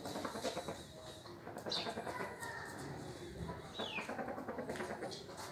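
Australorp chickens making short clucks and calls, a couple of them sliding down in pitch, over scratching and rustling.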